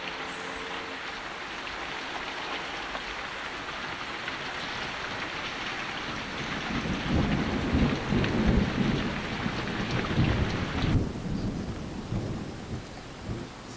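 Steady downpour of rain with rolls of thunder rumbling heavily from about seven seconds in. The rain's hiss stops abruptly about eleven seconds in, and the last low rumbles die away after it.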